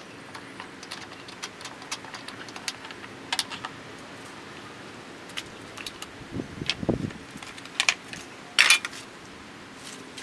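Metal tools and engine parts clicking and clinking during hand work on a lawnmower engine, with a heavier knocking scrape around the middle and one loud metal clank near the end.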